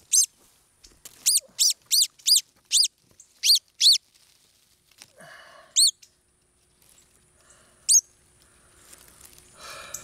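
Northern cardinal giving sharp, high chip calls: a quick run of about seven in the first four seconds, then single chips about two seconds apart.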